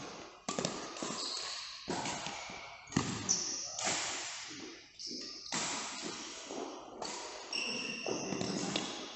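Badminton rally: rackets striking the shuttlecock about once a second, each hit echoing as in a large hall, with shoes squeaking briefly on the court floor.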